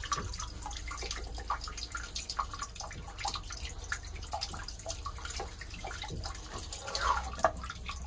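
Seawater trickling and dripping in an open Groco ARG-750 bronze raw-water sea strainer. The strainer is still leaking because its ball-valve seacock is not fully shutting off the flow.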